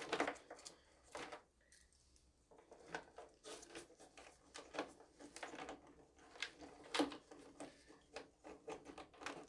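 Faint, irregular clicks, taps and rustles of hands and a small tool working inside a foam model jet's fuselage while bolting on the nose cone.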